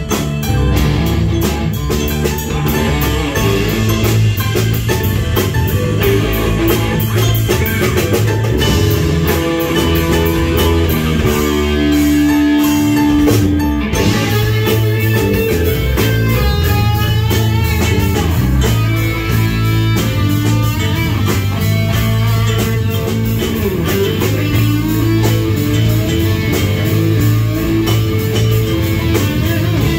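A rock band playing live: electric guitars, keyboard and drum kit with a steady beat. About twelve seconds in, the band drops back to a single held note for a couple of seconds, then comes back in full.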